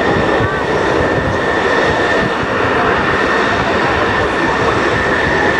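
Lockheed C-130 Hercules' four turboprop engines running as the aircraft rolls along the runway: a loud, steady rumble with a high whine held at one pitch.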